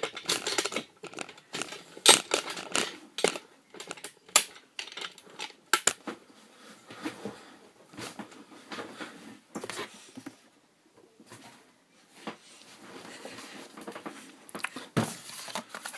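Camera tripod being adjusted lower by hand: an irregular run of clicks, knocks and scrapes mixed with rustling, with a short lull about two-thirds of the way through.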